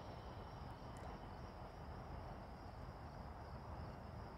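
Faint outdoor ambience: a steady high-pitched insect trill over a low, even rumble.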